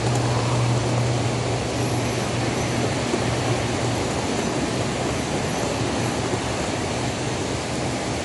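Standard gauge Dorfan toy steam locomotive and freight cars rolling past on metal track: a steady rumble of wheels on rails with a low electric motor hum. The hum is strongest as the locomotive passes at the start and eases as the freight cars go by.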